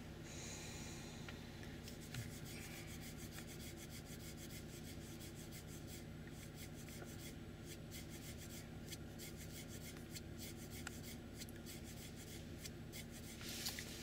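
Faint steady low engine drone, with a run of small clicks and rubbing sounds from handling close to the microphone.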